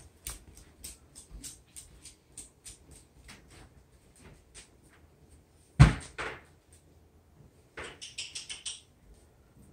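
Light clicking steps on a hardwood-look floor, about two to three a second. A single loud knock comes about six seconds in, and a brief rattle follows near the end.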